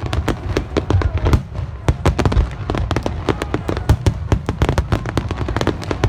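Aerial fireworks display in a dense barrage: shell bursts and crackling reports follow one another several times a second over a continuous low rumble.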